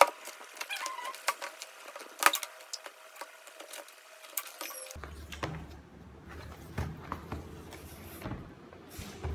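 Cardboard shipping box being opened by hand: scratching and picking at the packing tape, with cardboard rubbing and short taps. Two sharp knocks stand out, one right at the start and one about two seconds in.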